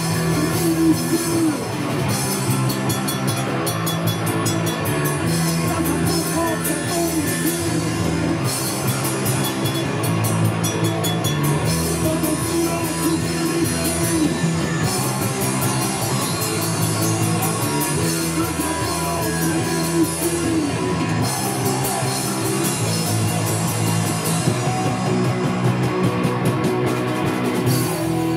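A rock band playing live: electric guitars and a drum kit with steady cymbal strikes, at a constant loud level.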